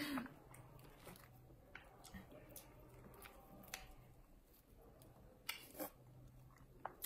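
Near silence with a faint low hum and a few scattered small clicks and taps, two of them a little louder about five and a half seconds in.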